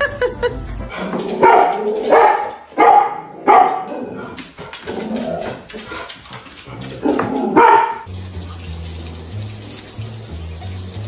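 A dog barks several times, loud short barks spaced irregularly over about six seconds. About eight seconds in, the barking stops and background music with a steady bass line takes over.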